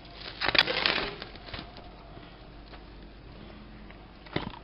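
Plastic cling film crinkling and rustling as it is pulled and stretched over a bowl of dough, loudest about half a second to a second in, then a faint rustle with a short knock near the end.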